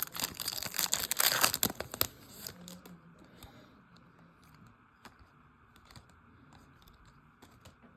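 Baseball trading card pack wrapper being torn open and crinkled for about two seconds, then only faint crinkles and light ticks as the cards are handled.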